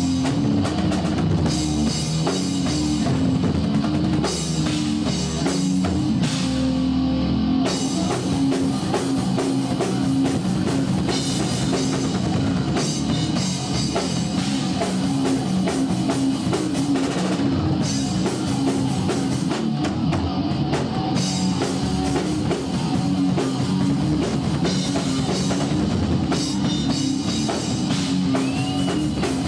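Live heavy rock band playing a song: a drum kit, a bass and electric guitar play together without a break.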